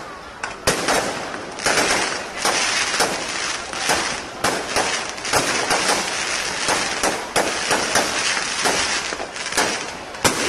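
Fireworks going off: a rapid, irregular string of sharp bangs, several a second, over a continuous crackling hiss.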